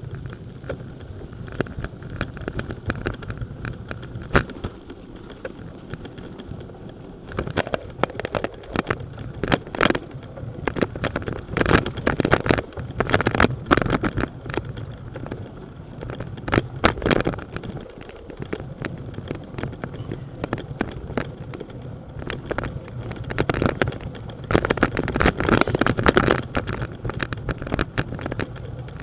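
Bicycle rolling over a wooden plank boardwalk: a low rumble under a busy run of clicks and rattles as the tyres cross the boards and the bike shakes, growing denser and louder about seven seconds in.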